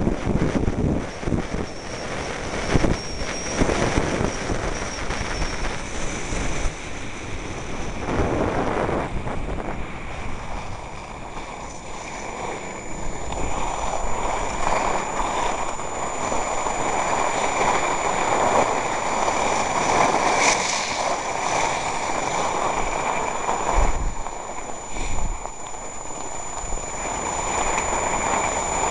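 Wind buffeting the microphone of a skier's camera during a downhill run, with the steady hiss of skis sliding over packed snow.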